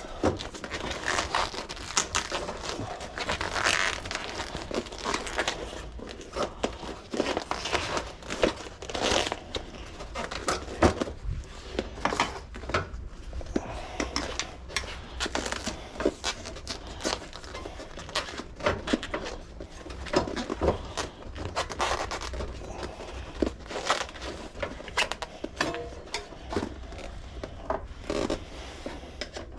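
Handling noise of an old bicycle tire and inner tube being torn and worked off the wheel rim: irregular crinkling, tearing and rubbing, with many scattered clicks and knocks.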